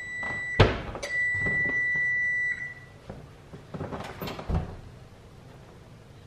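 Kitchen oven timer sounding one long steady beep, cut across by a sharp click about half a second in, and stopping about two and a half seconds in: the signal that the baking time is up. A couple of seconds later the oven door is pulled open with a few soft knocks.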